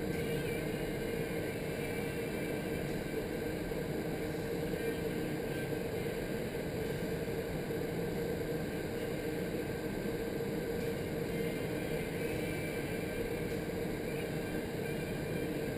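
Vertical wind tunnel running at flying speed: a steady rush of air from the tunnel's fans with a constant hum underneath.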